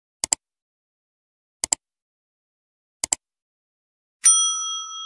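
Three double mouse clicks about a second and a half apart, then a bright bell ding near the end that rings on and fades: the click-and-bell sound effect of a subscribe-button animation.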